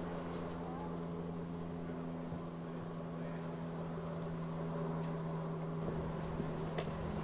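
FS E 656 electric locomotive standing at the platform, its equipment humming steadily over a low rumble. A higher tone in the hum fades out about five seconds in.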